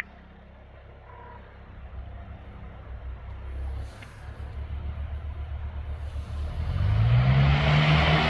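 Small piston airplane's engine throttling up for the takeoff roll: a low, pulsing engine sound builds, then about seven seconds in the engine note rises in pitch and gets much louder as power comes in.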